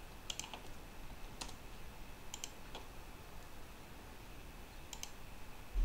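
A handful of separate sharp clicks from a computer's keys and mouse, some coming in quick pairs, spread over several seconds with pauses between them.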